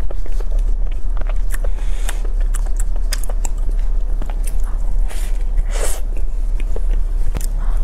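Close-up chewing and crunching of a crisp pastry tart shell filled with cream, with many small sharp crackles and a bigger crunching bite near the end, over a steady low hum.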